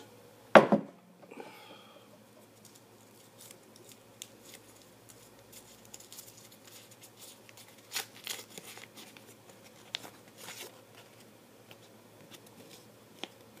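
Paper slips being handled while a name is drawn from a container: a brief loud rustle or knock about half a second in, then faint scattered crinkles and clicks as a slip is picked out and unfolded.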